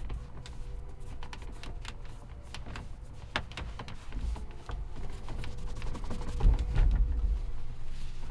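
Microfiber towel wiping and rubbing over the plastic steering column and controls of a tractor cab, with irregular small clicks and knocks of plastic and bursts of low thumps from the hand working the trim, heaviest about six to seven seconds in.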